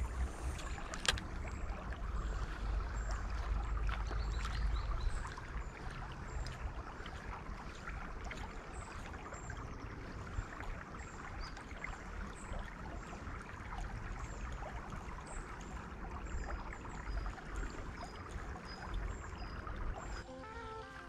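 Shallow river water running and trickling steadily, with a low rumble for the first five seconds and a couple of sharp clicks near the start. Short high chirps repeat about once a second through the middle, and music comes in near the end.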